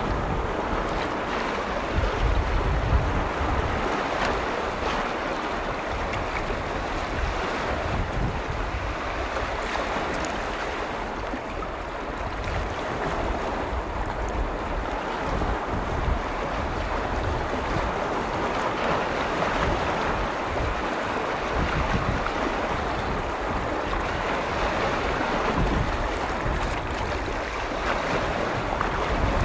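Lake waves washing steadily against the shore, with wind buffeting the microphone in irregular low gusts.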